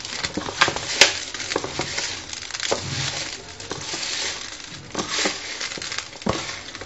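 Hands kneading and turning small pieces of raw meat with salt, spices and oil in a plastic bowl: irregular wet rustling and squishing, with a sharp click about a second in.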